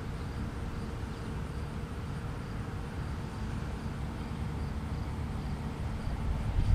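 Outdoor background sound: a steady low rumble, with faint high chirps repeating at an even pace above it. No siren is sounding yet.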